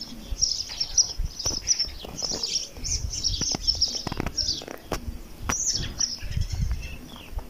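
Small birds chirping, many short high chirps following one another without a break, with scattered low thumps and a few clicks underneath.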